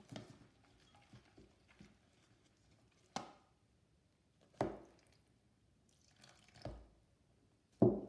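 A wire whisk stirring flour and warm water into papier-mâché paste in a plastic tub. It gives a handful of separate short wet knocks and splashes, a second or two apart, with quiet between them.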